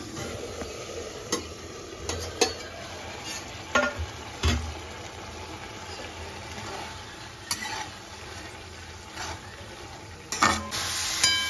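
Steel spatula stirring and scraping boiled chana dal in a steel kadhai, with scattered clinks of metal on metal over a low sizzle. Near the end, after a louder clank, the hiss grows much stronger as the dal, cooked nearly dry, fries on the hot pan.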